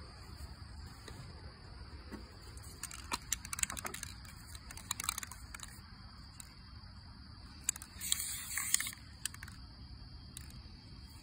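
Insects keep up a steady high-pitched drone throughout. About eight seconds in, an aerosol spray-paint can hisses in a short burst of just under a second. Scattered clicks and taps of paint cans and a metal cup being handled on the table come and go.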